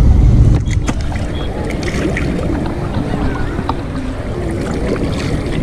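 Wind buffeting the microphone, which drops off about half a second in, then river water sloshing and lapping with small splashes around a man bathing in shallow water.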